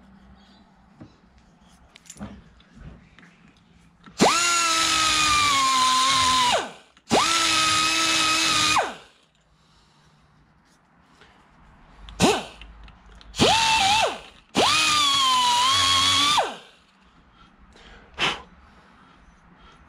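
Die grinder with a blunt sanding disc, run in four bursts of a second or two with a couple of short blips between, cleaning up the metal so as to take off as little material as possible. Its high whine sags in pitch as the disc bears on the work.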